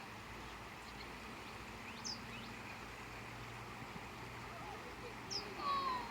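Birds calling over a steady outdoor background hiss: two short high chirps about two and five seconds in, then a louder falling whistle near the end.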